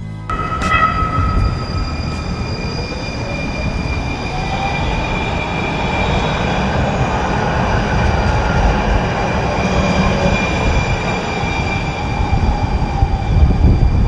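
A train passing: a continuous low rumble with steady high whining tones from the wheels on the rails, swelling toward the middle and easing off near the end.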